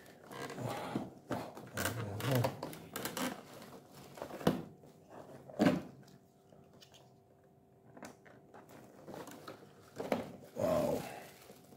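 Hands handling and working at a cardboard toy box: irregular scraping and rustling with sharp taps and clicks now and then, and a quieter spell in the middle.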